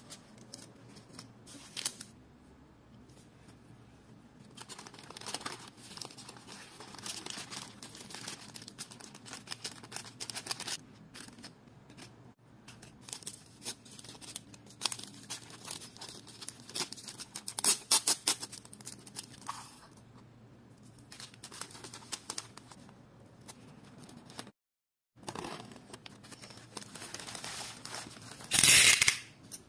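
Hands packing a small order: scattered clicks, rustling and tearing of packaging, in short separate bursts with quiet gaps between. A louder rasping tear lasting about a second comes near the end.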